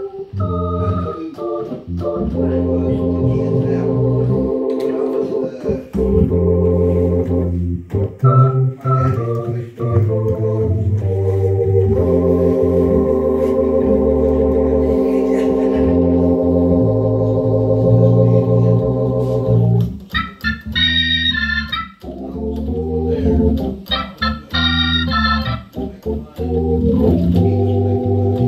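Crumar Mojo Dual organ played blues-style through a Motion Sound Pro 145 rotary speaker, with a bass amp carrying the low end: long held chords, broken about two-thirds of the way through by two short runs of quick high trills.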